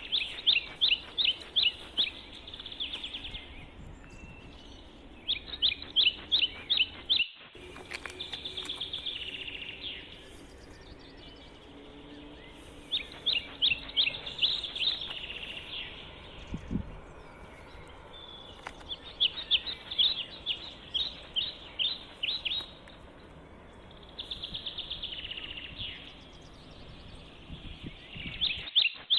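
Songbird singing outdoors: phrases of about eight to ten quick, sharp, high notes, each phrase lasting a couple of seconds and repeating every five or six seconds, with softer buzzy trills between the phrases.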